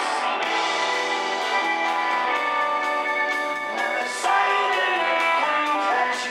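Rock band playing live: electric guitar, bass guitar and drums, with steady, evenly spaced cymbal strokes.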